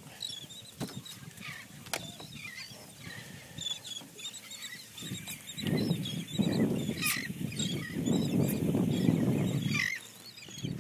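A flock of seabirds overhead calling in many short, overlapping squawks. From about five and a half seconds to ten seconds in, a louder low rushing noise covers them.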